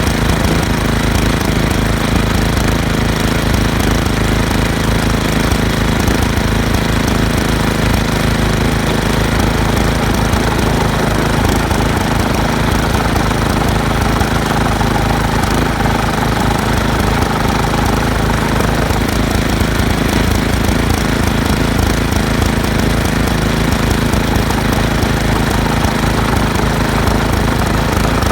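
Toro 826 OE snowblower engine running loudly at a steady speed. The machine has a fault where the impeller belt won't spin the impeller.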